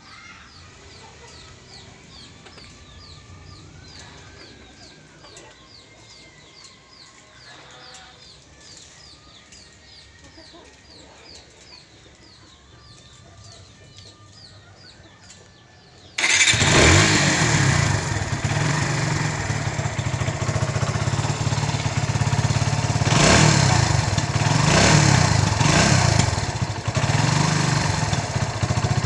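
A repeated high chirp sounds about twice a second in a quiet background. About halfway through, a Kawasaki W175's single-cylinder engine, breathing through its stock exhaust, starts up suddenly and runs loudly, with a few quick blips of the throttle a little later.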